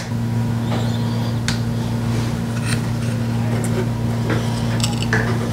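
A steady low hum that starts abruptly and holds an even pitch, with scattered light clicks and taps over it.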